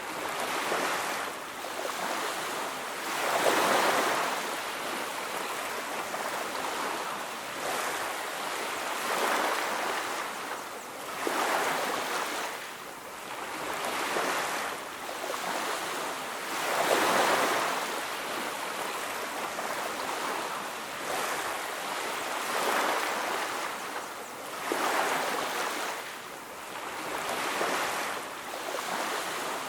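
Ocean waves washing onto a beach, swelling and receding every two to three seconds in a steady rolling rhythm.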